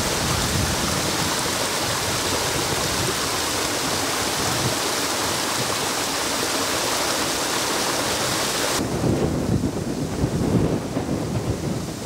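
Water of the Radau waterfall and its rocky cascade rushing and splashing over stone, a steady full hiss. About nine seconds in the sound changes suddenly to a deeper, more uneven rumble.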